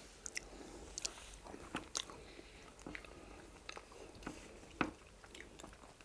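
Close-miked mouth sounds of eating fufu with egusi soup: wet chewing and swallowing with scattered soft lip smacks and clicks, one sharper smack nearly five seconds in.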